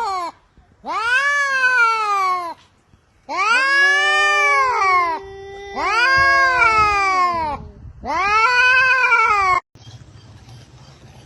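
Domestic cat crying with long, drawn-out yowling meows: four calls of about two seconds each, every one rising and then falling in pitch, with short pauses between, then a quiet stretch near the end.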